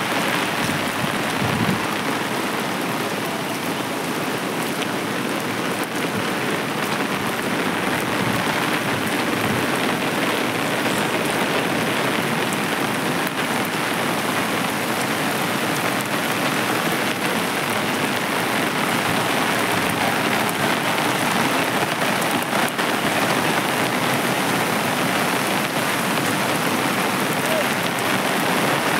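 Torrential cloudburst rain falling in a steady, even hiss.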